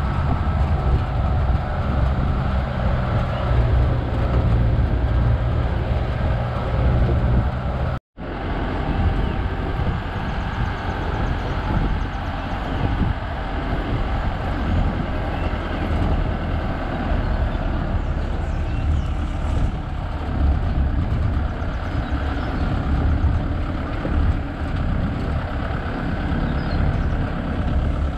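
Safari vehicle's engine running steadily as it drives along a forest track, with road noise. The sound cuts out for an instant about eight seconds in.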